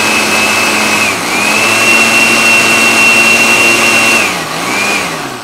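Countertop blender motor running at speed, pureeing boiled broccoli with some of its cooking water, a little more blending to get it smooth. The motor dips briefly about a second in, winds down after about four seconds, gives one short last pulse and spins down near the end.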